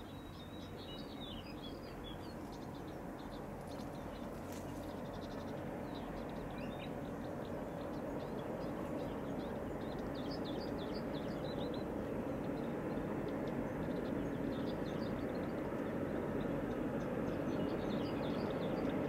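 Freight train approaching from a distance, the low steady rumble of its locomotive growing gradually louder, with birds chirping over it.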